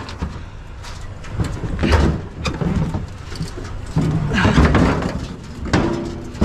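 A metal gas grill being shoved and tipped into a pickup truck bed, its cabinet scraping and knocking against the bed and tailgate in uneven bursts, loudest about two seconds in and again about four to five seconds in.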